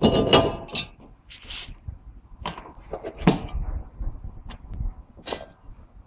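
Irregular metal clanks and knocks, some with a brief metallic ring, as a cast iron brake disc rotor is handled and slid onto the front wheel hub studs; the loudest clatter is at the start.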